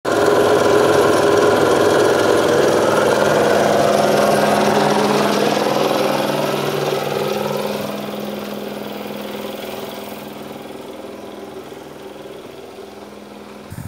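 Electric piston air compressor running steadily with an even mechanical hum, growing fainter over the second half with distance; a short thump near the end. It is supplying air to air-lift dirt out of a newly drilled well.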